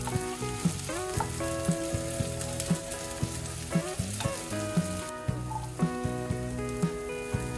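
Green chillies sizzling in a non-stick frying pan while a wooden spatula stirs them, under background music with a steady beat of about two thumps a second. The sizzle thins out about five seconds in.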